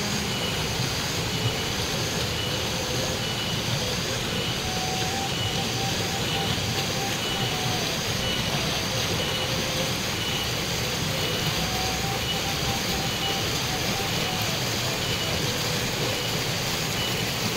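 Steady rushing of flowing river water in a forest, with a short high chirp repeating about twice a second throughout, like a calling insect or bird.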